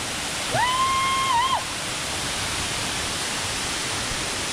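Steady rushing of a tall waterfall pouring down a rock face. About half a second in, a short, high, level call lasting about a second rises above it.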